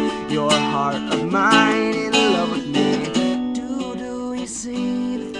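A man singing over strummed acoustic guitar. The voice stops about halfway through while the guitar plays on.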